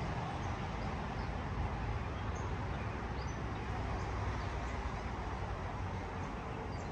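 Outdoor ambience: a steady low rumble under faint, scattered bird chirps.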